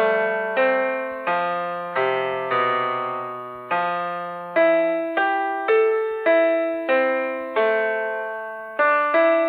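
Background piano music: a slow, gentle tune of notes and chords struck at an even pace, each one fading before the next.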